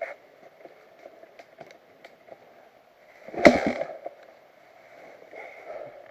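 Muffled motocross bike engine running steadily, with small rattling clicks and one loud knock about three and a half seconds in.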